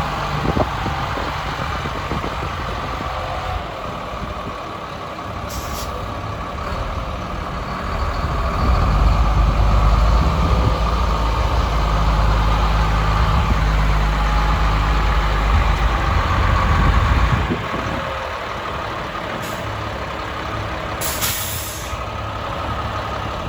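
Sterling Acterra truck's diesel engine running, heavier and louder for about ten seconds in the middle. Two short hisses of air stand out, a faint one about six seconds in and a stronger one near the end.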